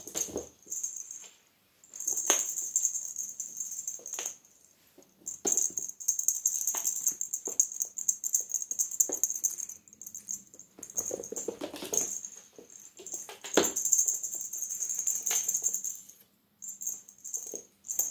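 Cat wand toy being shaken and dragged, a high rattle that stops and starts in stretches, with scattered knocks and scuffles of a kitten pouncing on the toy on a wooden floor.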